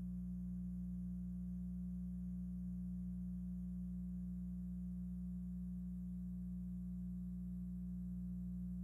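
Steady low electrical hum: a few fixed tones that never change.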